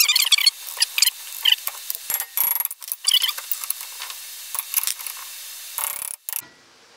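Metal hand tools clinking and scraping in a run of sharp, irregular clicks, with a couple of brief metallic rings, as a wrench and socket are worked onto a tight-fitting nut at the wheel hub.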